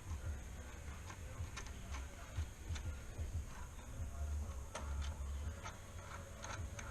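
Irregular light clicks and ticks of hand tools working on brake-line fittings, with low rumbling knocks between them.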